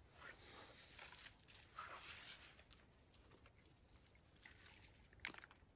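Faint rustling of a bundle of thin dry twigs being handled and laid over a small flame, with a few light clicks, one sharper about five seconds in.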